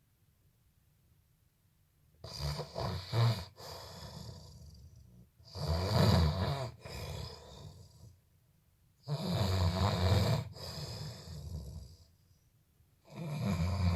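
A person snoring: four long snores, about one every three and a half seconds, the first starting about two seconds in, each loudest at its start and trailing off.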